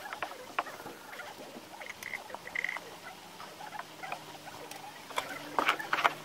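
Vegetable broth simmering in a steel wok over a drum stove, with scattered small pops and clicks. A metal ladle clinks against the wok, and near the end a cluster of sharper metal clanks as the steel lid goes on.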